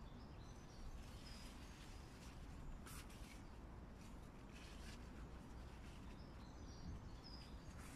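Faint outdoor garden ambience with a few distant bird chirps, and a soft click or rustle about three seconds in from picking among the bean plants.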